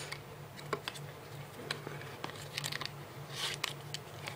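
Light clicks, taps and rustles of a product box and its packaging being handled and opened, with a short rustle about three and a half seconds in.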